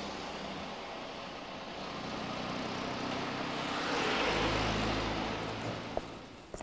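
A car driving past along a street: engine and tyre noise swell to their loudest about four seconds in, then fade away.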